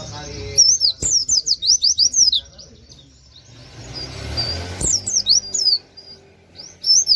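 Pleci (white-eye) singing in quick runs of sharp, high sweeping chirps. There are three bursts: the longest starts about half a second in, a shorter one comes past the middle, and another begins near the end.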